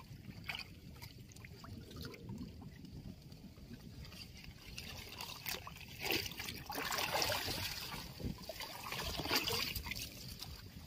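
Water trickling and dripping around a small boat being paddled, with louder swishing splashes of stirred water about six seconds in and again about nine seconds in.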